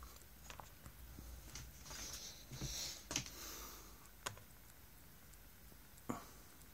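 Faint handling noise from a torpedo spirit level being moved on a turntable platter: several sharp little clicks and taps, with brief rustling in the middle.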